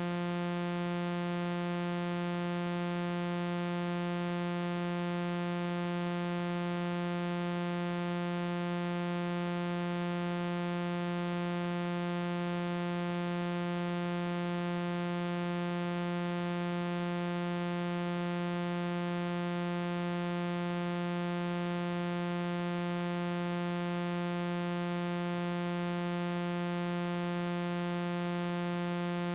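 A single steady electronic tone, buzzy with many overtones, held at one pitch with a hiss under it and no change in pitch or loudness.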